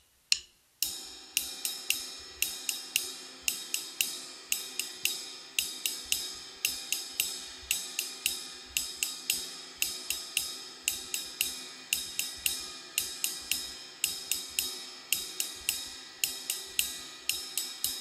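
Ride cymbal struck with a drumstick in the slow jazz samba ride pattern (one, two-and, three, four-and), repeating steadily with the cymbal's wash ringing between strokes. The pattern starts just under a second in, after a single sharp click.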